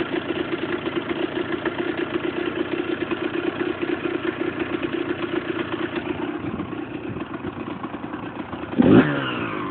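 Husqvarna SM 125 motorcycle's single-cylinder engine idling with a steady, pulsing beat, blipped once in a quick rev near the end. The uploader puts the noise down to a loose nut on the crankshaft.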